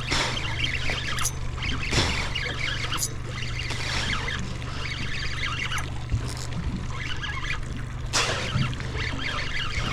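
A small boat's outboard motor running steadily at trolling speed, with water splashing and trickling around the hull and a few sharp knocks.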